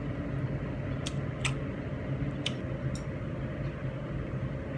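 Steady low mechanical hum, with a few faint clicks and mouth smacks from someone chewing a meal of rice and chicken rendang and eating it with her fingers.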